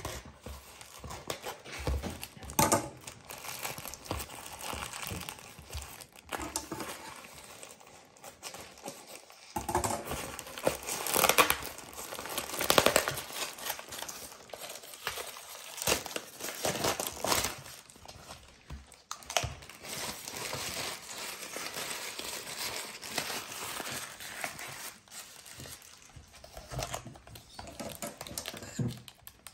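Plastic packaging crinkling and rustling in irregular bursts as a poly mailer is cut open with scissors, pulled apart, and the clear plastic bag inside is handled.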